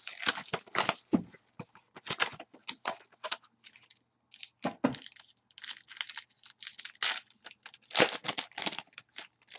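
Hands tearing open a sealed football trading-card box and its packs: an irregular run of short crackles and rips of cardboard and wrapper, pausing briefly about four seconds in, loudest near the end.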